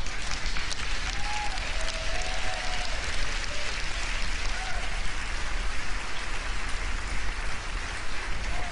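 Large audience applauding and laughing: dense, even clapping with a few short voices heard over it.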